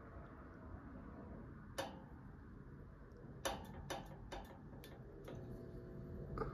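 Electromechanical shifter starter of a GE Cooper Hewitt low-pressure mercury vapor lamp clicking as it bobs back and forth to strike the tube: one click, then a quick run of about six more. Near the end the lamp catches and a faint steady hum sets in.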